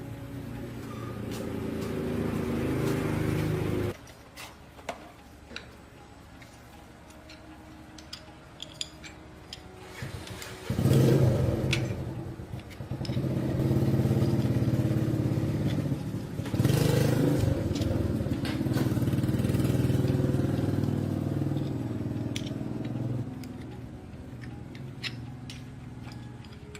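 Small motorcycle engine running and revved: it rises and then cuts off suddenly about four seconds in, and after a stretch of clicks and clatter it runs again, with two sharp bursts of throttle before easing off near the end.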